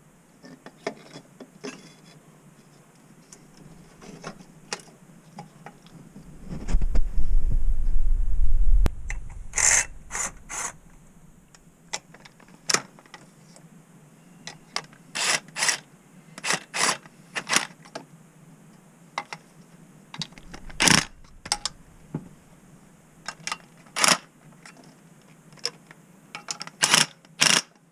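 Hand ratchet on a long extension and socket, clicking in short bursts as bolts and nuts on the engine's intake are run down snug. About seven seconds in there are a couple of seconds of low rumbling, the loudest sound.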